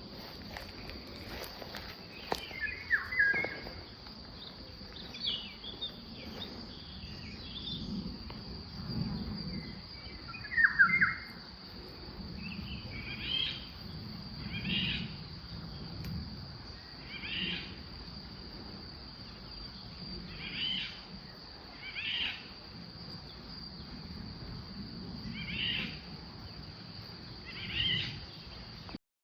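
Birds singing outdoors, with a short call repeated every couple of seconds through the second half, over a steady high-pitched insect drone.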